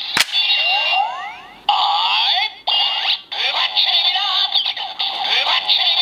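Kamen Rider Ghost legend rider key toy playing its electronic transformation sound effect through its small speaker: a click at the start, then rising synth sweeps, music and a recorded voice call.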